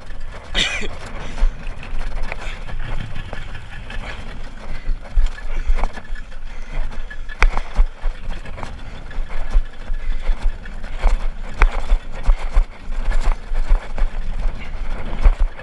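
Wind buffeting the microphone and water splashing against a small open boat trolling under a Yamaha outboard motor, with a few sharp knocks along the way.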